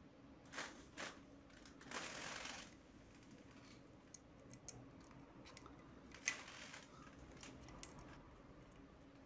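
Small metal clicks and scrapes as a flat tool is fitted into the cam chain tensioner of a Honda CBR250R engine: two light clicks in the first second, a brief scraping rustle about two seconds in, and one sharper click just past six seconds, with faint ticks between.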